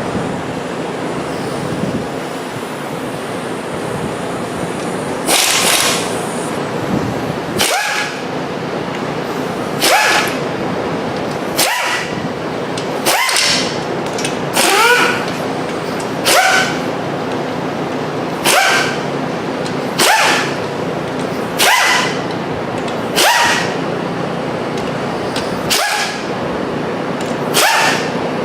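A power tool run in short bursts, one about every one and a half to two seconds, each rising quickly in pitch, as the oil pan bolts come out of a 6.7 Powerstroke diesel engine.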